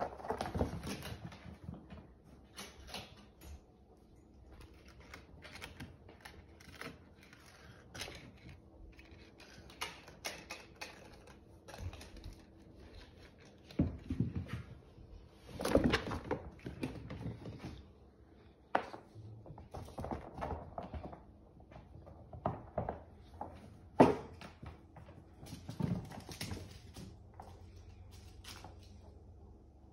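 Kittens playing on a hardwood floor and rug: scattered, irregular light thumps, taps and scrabbling of paws and small toys, with one sharper knock late on.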